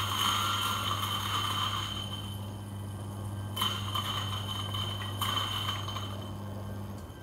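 Eureka Mignon XL electric coffee grinder running a timed dose of about seven seconds: a steady motor hum with the crackle of coffee beans being ground, stopping suddenly at the end of the timer.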